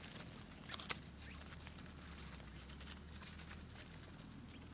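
Dry leaves and grass rustling in short, scattered crackles, with one sharper crackle about a second in.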